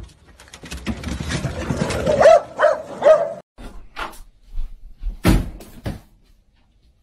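Several puppies giving short yelps over a rustling noise, followed by a few sharp knocks, the loudest about five seconds in.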